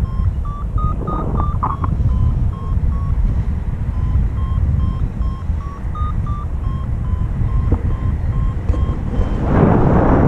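Paragliding variometer beeping in a steady run of short tones that step a little higher and lower in pitch, the beeping that signals the glider is climbing. Heavy wind buffeting on the microphone runs underneath, with a louder rush of wind near the end.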